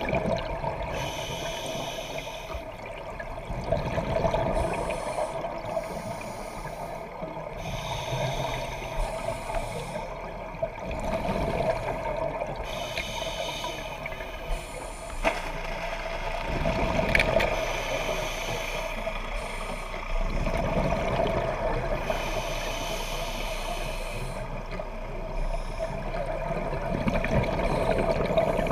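Scuba diver's regulator breathing underwater, heard through a camera housing: hissing breaths alternate every couple of seconds with gurgling exhaust bubbles, over a steady hum.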